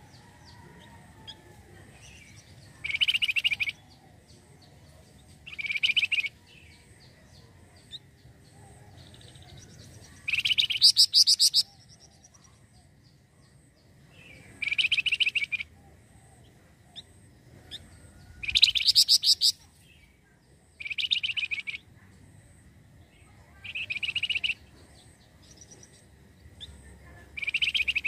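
Flamboyan bird (Javan fulvetta) singing: short, fast trilled phrases, each under a second long, repeated about every three seconds, nine times.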